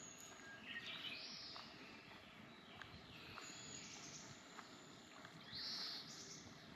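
Birds calling over faint outdoor ambience: a short call about a second in and a louder one near the end, with scattered light ticks.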